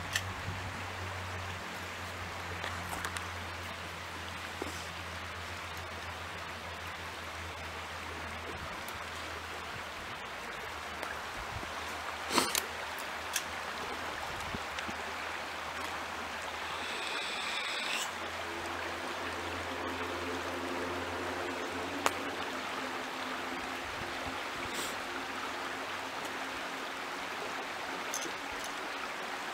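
Creek water running steadily, an even rushing wash, with a few sharp clicks (the loudest about twelve seconds in) and a short high-pitched sound near the middle.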